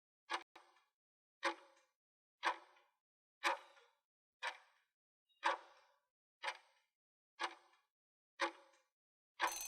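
Countdown-timer sound effect: a clock ticking once a second, nine ticks, then a bell starts ringing near the end, signalling that time is up.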